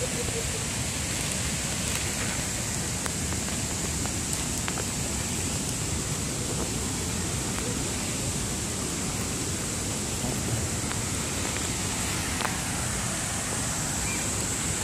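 Steady, even rushing noise in the open air, with no distinct events.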